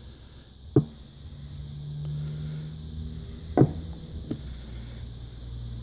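Two sharp knocks, the first just under a second in and the second about three seconds later, with a low steady hum between them.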